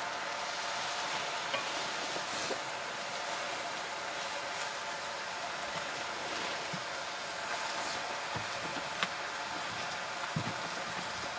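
Leafy greens frying with a steady sizzle in a pan over a wood fire, stirred with a wooden spatula, with a few light clicks and knocks.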